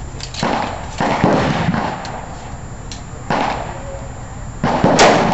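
A string of rifle shots on a firing range, about four sharp reports, each with a short echoing tail. The loudest comes near the end, a close, heavy report from the 1943 Izhevsk Mosin-Nagant bolt-action rifle in 7.62×54R.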